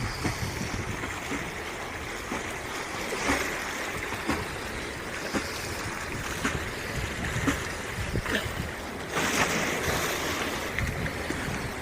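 Sea surf washing on a beach: a steady rushing of waves, swelling louder about nine seconds in.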